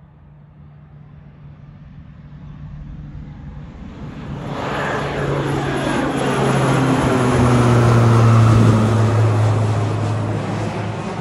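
Crop-dusting airplane flying low overhead: its engine and propeller grow steadily louder as it approaches, are loudest about eight seconds in as it passes over, with the pitch sliding down, then begin to fade.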